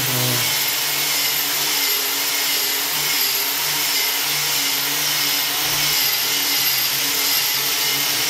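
An electric power tool running steadily: a continuous whir with thin high whines over it.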